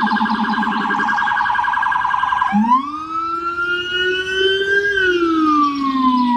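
Police car siren sounding a rapid warbling yelp, then about two and a half seconds in switching to a slow wail that rises and then falls.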